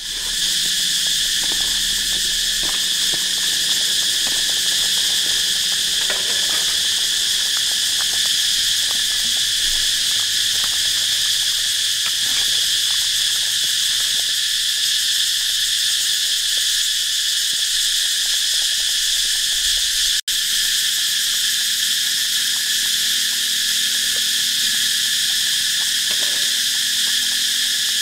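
Loud, steady chorus of insects: a continuous high buzzing drone with no pauses. It cuts out for an instant about twenty seconds in.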